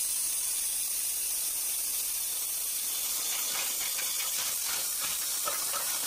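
Waterjet cutting stream hissing steadily at low pressure as it fires into a plastic coffee pod, with light spattering from about halfway in.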